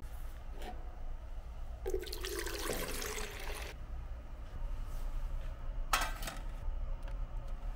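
A rush of water-like swishing for about two seconds, then a brief clatter about six seconds in as a stainless steel tray is set on a scale, over a steady low hum.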